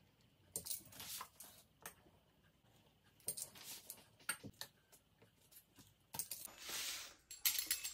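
Metal pizza-cutter wheel rolling through a sheet of puff pastry on a wooden cutting board: faint scattered clicks and light metallic rattles, with a short scraping hiss near the end.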